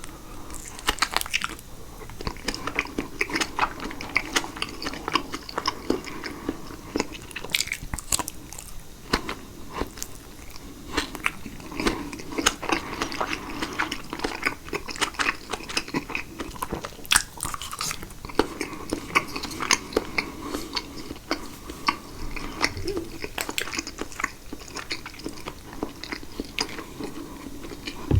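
Close-miked chewing and biting of caprese salad (tomato and fresh mozzarella in balsamic dressing), with many irregular sharp wet clicks and smacks from the mouth.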